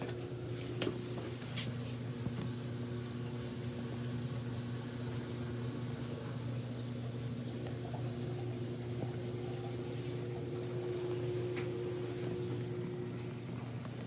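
Forced-air furnace running with a steady low electric hum over a soft airy rush, with a few short clicks in the first two seconds.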